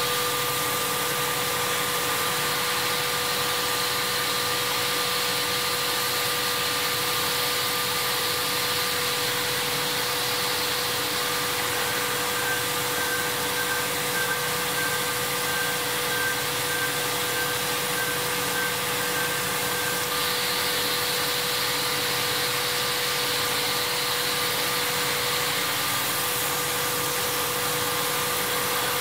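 Röders RXU 1000 DSH CNC machining centre running a cut, a steady whine over a continuous rushing machining noise. A second, higher tone joins about twelve seconds in and drops out about eight seconds later.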